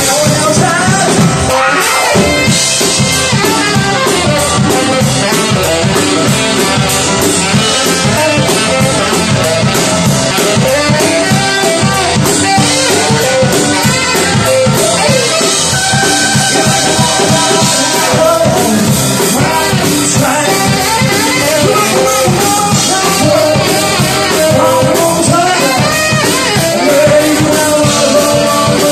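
Live rock-and-roll band playing loud and steady: a male voice singing over a drum kit beat, keyboard and saxophone.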